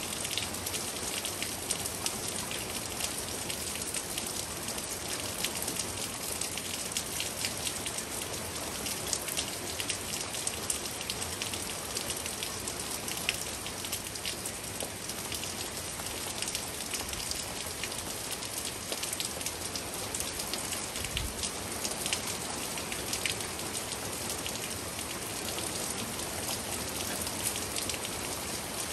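Steady rain falling during a thunderstorm, with many individual drops ticking sharply close by.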